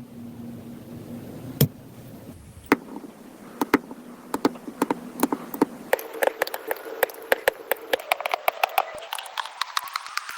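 Slime being kneaded and squished by hand, giving sharp clicks and pops. The clicks start about three seconds in and come thicker and faster toward the end.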